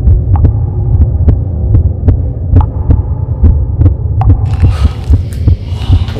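Loud, low throbbing rumble with scattered sharp clicks; a hiss comes in about two-thirds of the way through.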